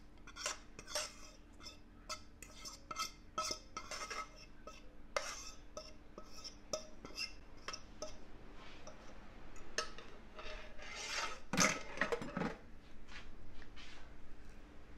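Metal utensils clinking and scraping against a bowl as egg roll filling is mixed: an irregular run of short clicks and knocks, with a louder clatter about twelve seconds in.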